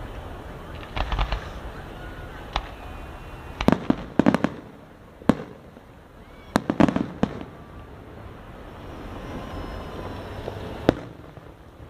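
Fireworks exploding in the sky: a series of sharp bangs a second or two apart, several coming as quick crackling clusters of reports, with a last single bang near the end.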